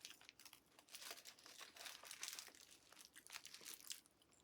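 Faint crinkling of paper fast-food packaging, a run of small irregular crackles that stops shortly before the end.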